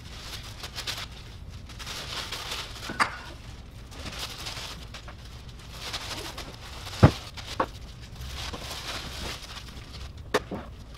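Clear plastic film rustling and crinkling as it is handled and pulled off the machine heads, with a few sharp taps, the loudest about seven seconds in.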